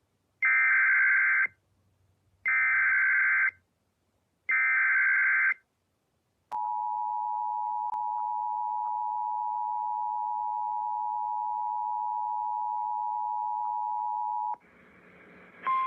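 Emergency Alert System signal: three roughly one-second bursts of SAME header data, a harsh digital screech, about a second apart. Then the two-tone EAS attention signal (853 and 960 Hz together) holds steady for about eight seconds. A short stretch of hiss follows near the end.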